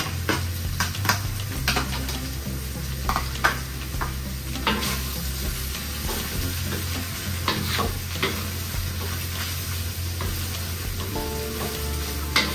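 Spatula scraping and knocking against a frying pan in irregular clicks while chicken intestines, pineapple chunks and large chillies sizzle as they are stir-fried dry.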